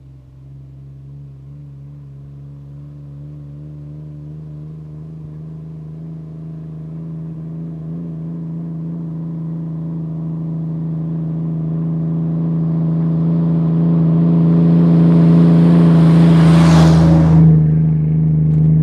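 A vehicle engine running at a steady pitch, growing steadily louder as it approaches. A loud rising whoosh comes near the end.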